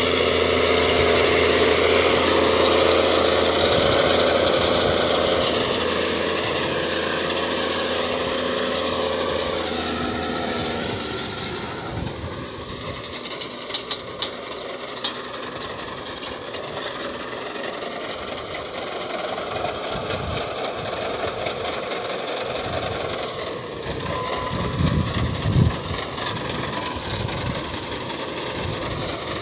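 Case IH 225 tractor's diesel engine running steadily under load while pulling a precision planter, loud at first as it passes close, then fading as it moves away and growing louder again as it comes back near. A few sharp clicks about halfway through and a couple of low knocks near the end.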